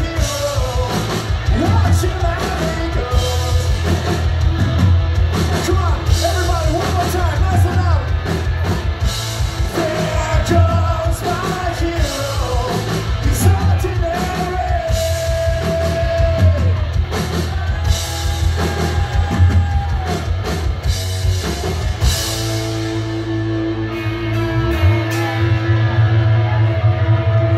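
Live rock band playing with a lead singer, drum kit, distorted guitars and bass. About 22 seconds in the drumming stops and a chord is held ringing out.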